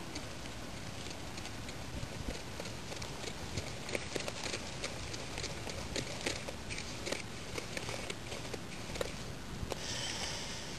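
Dry fu-based hera groundbait being mixed by hand in a plastic bowl: irregular light taps and scratches of fingers working the powder against the bowl, over a steady background hiss.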